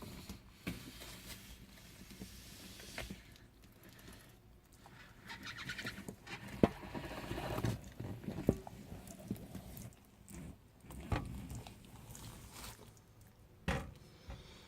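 A tegu lizard moving about in its enclosure: spells of rustling and scraping with scattered sharp knocks, the loudest about halfway through.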